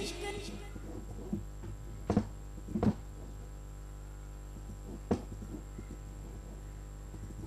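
A steady low electrical hum with a faint high whine, broken by four sharp clicks, the loudest two about two and three seconds in: computer mouse clicks. At the start the last of a sung vocal playback dies away.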